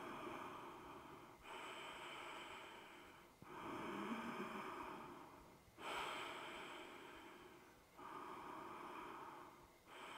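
A woman taking slow, deep, audible breaths through the yoga pose, about one breath every two seconds; each breath starts suddenly and fades away.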